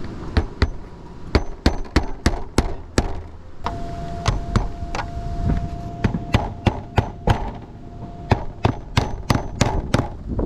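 Roofing nails being driven into asphalt shingles: a quick, irregular run of sharp strikes, about two to three a second, with a brief pause partway through.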